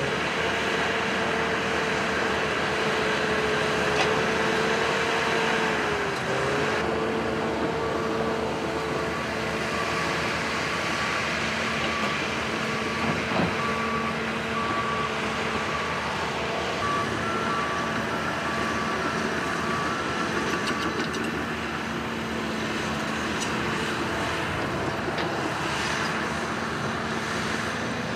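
Diesel engines of heavy earthmoving equipment running steadily, the Cat 320C hydraulic excavator's among them, its pitch dipping briefly twice. A backup alarm beeps in an even rhythm for about a dozen seconds in the middle.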